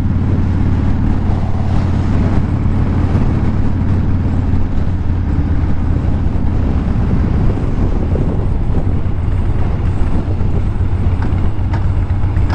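Cruiser motorcycle engine running steadily under way, heard from the rider's seat with road and wind noise.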